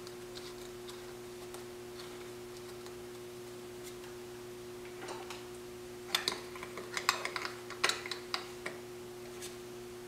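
Small wrench clicking against the metal nut of a coax cable connector while tightening it on a plastic exterior junction box: a quick run of sharp clicks about six seconds in, after a few faint ticks. A steady low electrical hum runs underneath.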